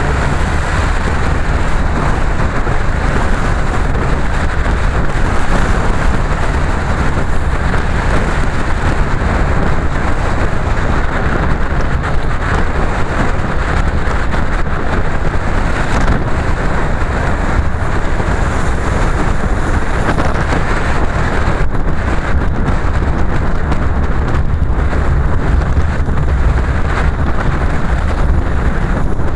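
Steady noise of a car being driven on a wet road: a low engine and tyre rumble with the hiss of tyres on wet tarmac.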